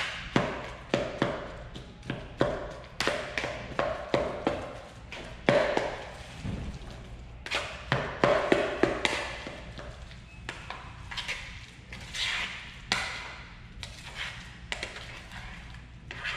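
Mixing spoon stirring and mashing guacamole in a plastic mixing bowl: uneven knocks of the spoon against the bowl, one or two a second, with scraping and squelching between strokes.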